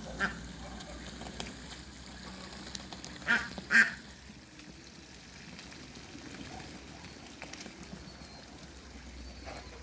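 Ducks quacking: a short call at the start, then two loud quacks in quick succession about three and a half seconds in, with a few faint calls afterwards.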